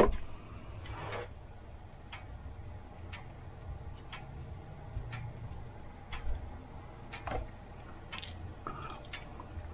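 A pendulum clock ticking steadily about once a second, faintly, with a few soft knocks of small parts being handled.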